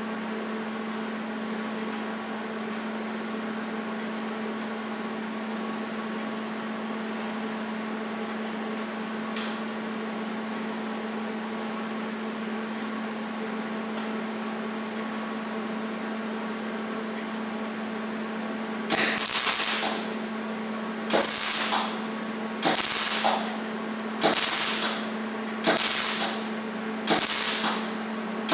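Hobart 130XL wire-feed welder humming steadily. About two-thirds of the way in, six short bursts of arc noise come about a second and a half apart: short stitch welds on thin sheet-metal rocker panel, with the welder turned down so it does not burn through.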